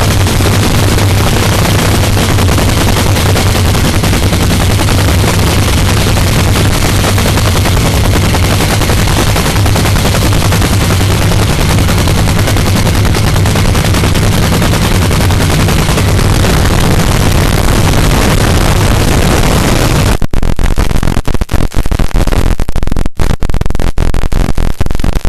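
Supercharged nitromethane drag racing engine running, a steady hard, rapid cracking exhaust. About twenty seconds in it gets louder still, overloading the recording with sudden dropouts.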